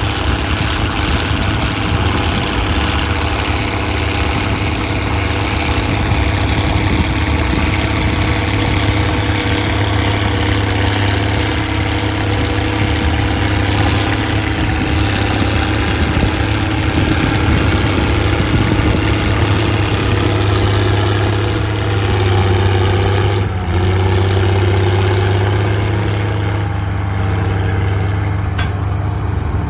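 Straight-piped Case 1056XL tractor's six-cylinder diesel running steadily and loud under ploughing load. The engine note shifts slightly about two-thirds of the way in, with a brief dip.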